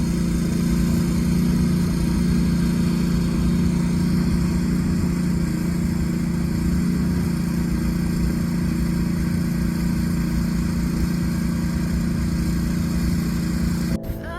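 A steady engine-like hum at an unchanging pitch, cutting off suddenly near the end.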